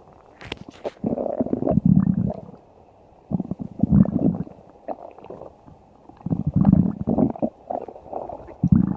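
A stomach growling: low, gurgling rumbles in about three separate bouts a couple of seconds apart, with another starting near the end and a brief sharp crackle about half a second in.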